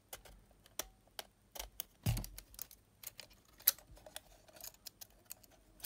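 Irregular small clicks and ticks of a Sony WM-EX900 cassette Walkman's thin middle frame being worked loose from the body by hand, with a low bump about two seconds in.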